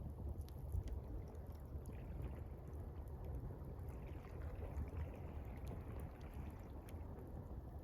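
Gentle water lapping and trickling beside a campfire, with faint, scattered crackles from the fire.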